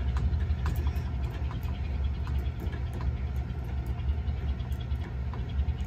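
A steady low rumble throughout, with faint scattered light clicks of a pick raking and tensioning the pins of a cheap wafer-style shed handle lock.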